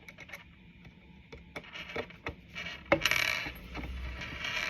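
A screwdriver driving a screw into a wooden stand's back piece: irregular metallic clicks and taps, the loudest about three seconds in, followed by a short scraping as the screw turns.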